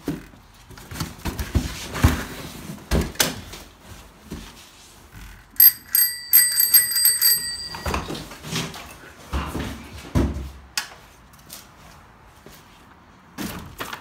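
A bicycle bell rung in a quick series of rings lasting about two seconds, about six seconds in. Around it are knocks and clatter from a metal tricycle being handled and moved among stored things.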